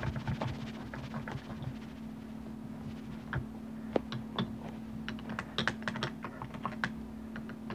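Irregular light clicks and taps of plastic and metal parts being handled as a rifle's pistol grip is worked loose from the lower receiver. They come in quick runs about five to six seconds in, over a faint steady hum.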